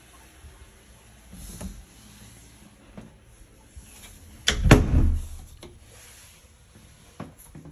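A wooden door being shut or knocked: two sharp knocks in quick succession about four and a half seconds in, with a heavy low thud. A few fainter knocks come before and after.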